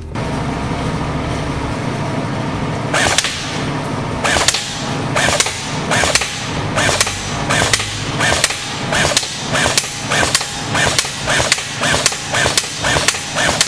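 CYMA Dragunov SVD airsoft electric rifle firing semi-automatic, one shot at a time in a steady rhythm of about one and a half shots a second, starting about three seconds in. A steady background hum comes before the first shot.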